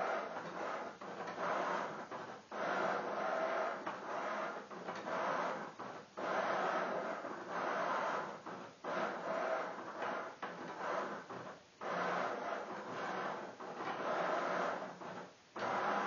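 Milton Bradley chess robot's motorised under-board arm whirring as it moves pieces across the board, in runs of a second or two that stop and start again.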